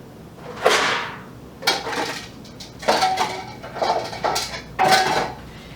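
Dishes clattering and knocking together in a series of about five knocks, some briefly ringing, as a bowl is taken out from among other dishes.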